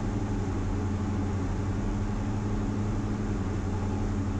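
Diamond DA42 VI's twin Austro AE300 turbodiesel engines and propellers droning steadily, heard inside the cockpit on short final with power reduced for landing.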